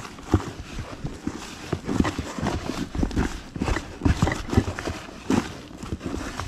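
Hands mixing freshly watered fishing groundbait in a bucket: a run of irregular soft knocks, several a second. The mix has taken too much water, in the angler's own judgement.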